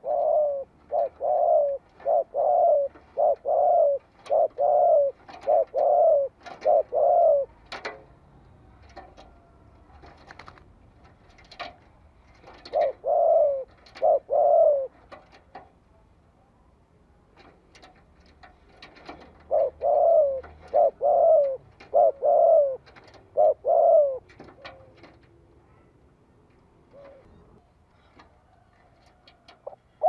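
Spotted dove cooing in runs of quick, low coos: a long run, a pause of several seconds, two coos, another pause, then a run of about five. This is the territorial call used as a decoy to draw wild rival males to answer and fight.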